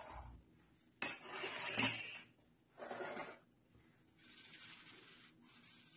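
Kitchenware being handled on a marble countertop: a sudden clatter of dishes about a second in, a second shorter one, then a softer scraping as a large glazed earthenware dish is drawn across the counter.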